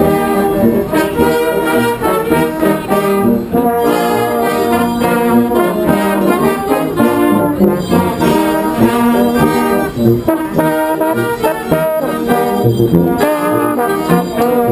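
Brass band music, trombones and trumpets playing a tune together.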